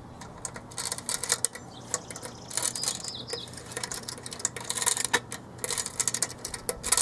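Clockwork spring of a Paya tin windup seaplane toy being wound by its key: a run of irregular, rapid ratchet clicks.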